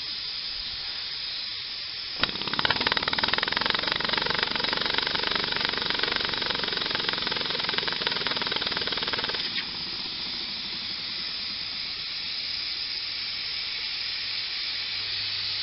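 Single-cylinder model ball-valve uniflow engine running on a pressure supply of about two bar: a fast, even stream of exhaust beats starts about two seconds in and stops suddenly past the middle. A steady hiss of escaping air or steam goes on throughout.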